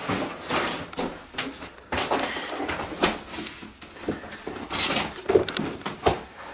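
A large cardboard box being cut open and handled: irregular tearing, scraping and rustling of cardboard, with a few short knocks.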